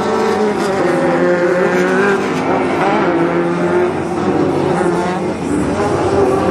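Engines of several Pro Lite short-course off-road race trucks running hard together, each rising and falling in pitch as the trucks accelerate and back off through the turns.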